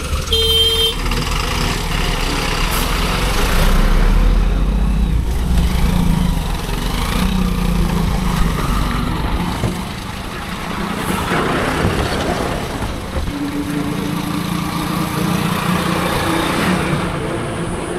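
Wind buffeting the microphone and road traffic noise while riding a scooter. A brief beep sounds about half a second in, and a steady hum from a passing vehicle comes in near the end.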